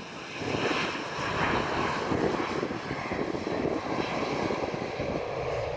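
Airbus A319-111's CFM56 jet engines running at low power as the airliner rolls out on the runway after landing, a steady jet noise.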